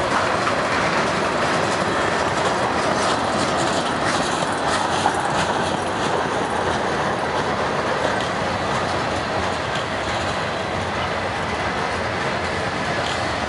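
Freight train cars rolling past: a steady noise of steel wheels on the rails, with a few faint clicks a few seconds in.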